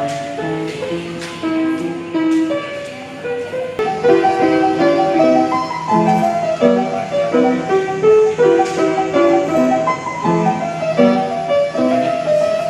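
Piano being played: a melody over chords, getting louder about four seconds in.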